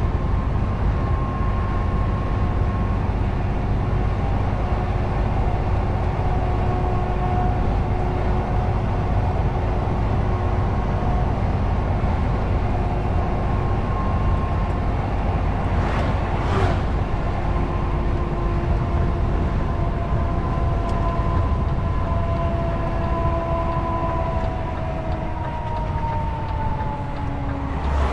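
DAF truck driving, heard from inside the cab: a steady diesel engine drone with road and tyre noise. The engine note falls gradually near the end, and there is one short click about halfway through.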